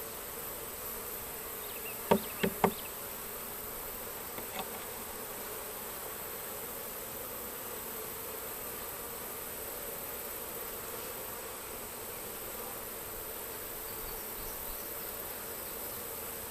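Honey bee swarm buzzing steadily. Three sharp knocks come in quick succession about two seconds in, and a fainter click about two seconds later.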